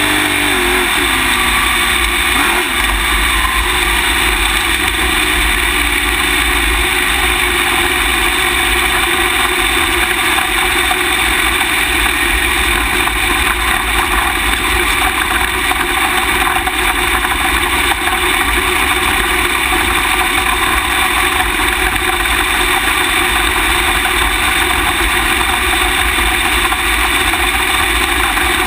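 Onboard sound of an open-wheel dirt-track race car's engine, heard loud through the car-mounted camera. It eases off in the first couple of seconds, then runs steadily at low speed as the car rolls slowly along.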